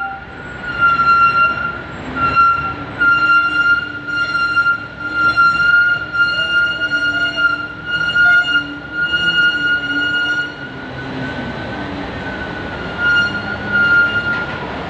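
Ferry car-deck noise as a loaded truck drives down the steel vehicle ramp: its engine running under a steady high-pitched tone, with the loudness surging unevenly.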